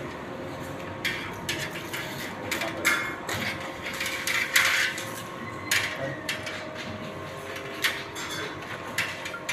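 Electrical wires rustling and scraping as they are handled and fed into flexible plastic conduit, in irregular short bursts.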